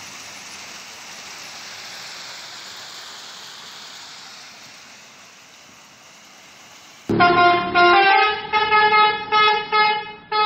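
Crushed-stone ballast pouring from the bottom discharge chutes of slowly moving hopper wagons, a steady rushing hiss of falling stone that slowly fades. About seven seconds in it cuts off abruptly to loud music with a stepping melody.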